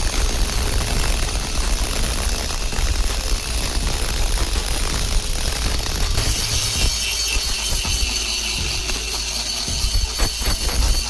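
Steady, loud machine noise from metalworking, changing about six seconds in to a higher whine, with a few sharp knocks near the end.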